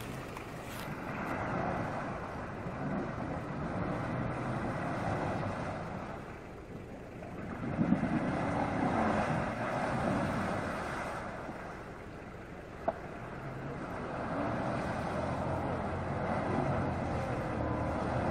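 SUV engine revving in three surges as the spinning wheels churn through deep muddy water, the vehicle stuck and struggling to move. A single sharp click about 13 seconds in.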